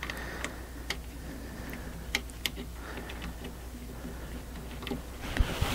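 Light, irregular metal clicks and ticks of a gib adjustment screw being fitted by hand into a bench mill's saddle, over a faint steady low hum.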